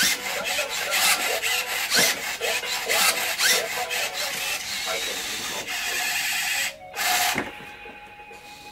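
UBTECH Alpha 1S humanoid robot's servo motors whirring and clicking in quick, repeated strokes as it moves its arms and legs, with short rising and falling whines. The movement stops about seven and a half seconds in, leaving only a faint steady hum.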